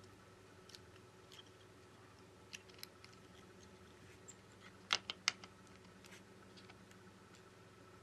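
Faint scattered clicks and taps as a smartphone's mainboard and small parts are handled and pressed into place in the phone frame. A sharper cluster of three or four clicks comes about five seconds in, over a steady low hum.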